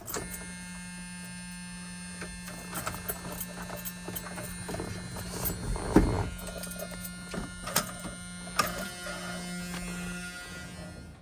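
Steady electric hum from the truck with the key in the ignition before cranking, with scattered clicks and a knock about six seconds in; the hum stops shortly before the end.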